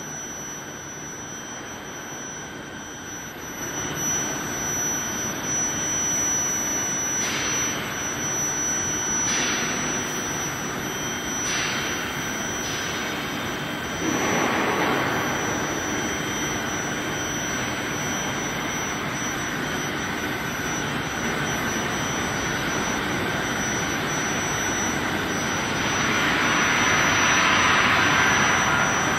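Steady industrial noise of an induction heating and tempering line for threaded rebar: a constant high-pitched whine over a hissing rumble that swells louder several times.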